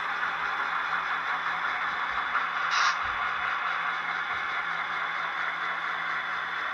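Model train running along the layout's track: a steady whirring hiss with a low hum underneath, and a short brighter hiss about three seconds in.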